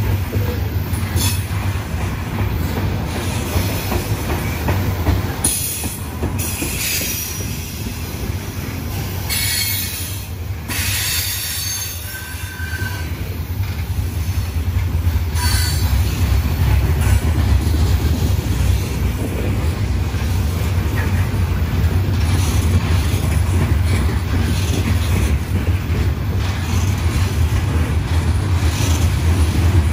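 Norfolk Southern coal hopper cars rolling past: a steady low rumble of steel wheels on rail, with short high-pitched wheel squeals several times in the first half. The rumble grows louder in the second half.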